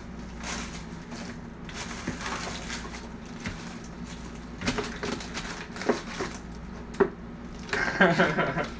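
Frozen food bags and packages rustling and crinkling as they are shoved around inside a freezer. A few sharp knocks and clunks of trays and containers come in the second half, with the loudest jostling near the end.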